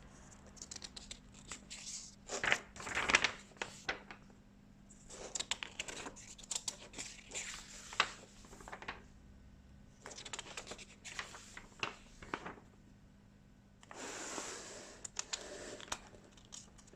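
Paper and packaging of a plastic model kit being handled: irregular rustling, crinkling and small clicks in several bouts as the instruction sheets are leafed through.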